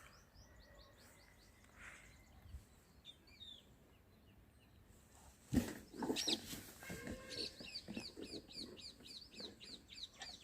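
Birds chirping faintly: a few quick chirps near the start, then a fast, even run of repeated chirps, about three a second, through the second half. A single knock sounds about halfway through.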